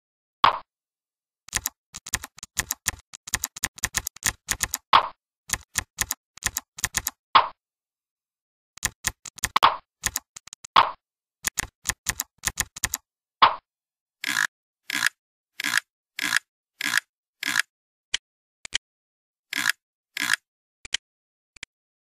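Software-generated keyboard typing sounds, one click per key press, in quick irregular runs as text is typed, with a few separate duller single clicks among them, the program's mouse-click sound. From about 14 seconds in the key sounds come slower and evenly spaced, about two a second.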